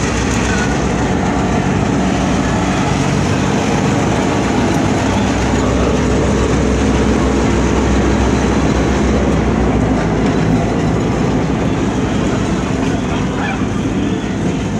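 Stone Mountain Railroad diesel locomotive running steadily as it passes close, its low rumble loudest about halfway through as the locomotive goes by, then the passenger cars rolling past.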